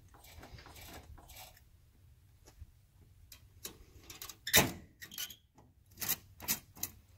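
Metal clanks and clicks from a car-trailer winch, strap and steel bar being worked by hand. The loudest is a single sharp clank a little past halfway, followed by a quick run of smaller clicks near the end.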